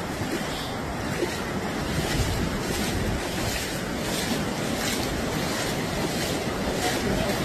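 Fast-flowing floodwater rushing steadily across a flooded street, with wind buffeting the microphone.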